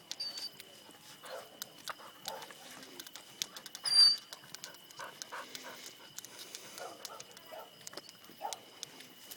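A dog making short, scattered vocal sounds, the loudest about four seconds in.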